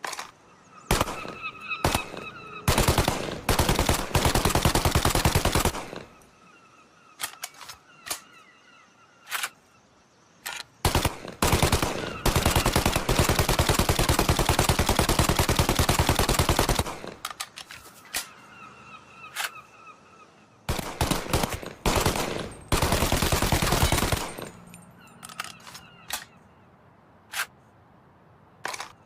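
Tommy gun (Thompson submachine gun) firing on full automatic: single shots and short bursts, broken by longer bursts of rapid, evenly spaced shots, the longest lasting about six seconds in the middle.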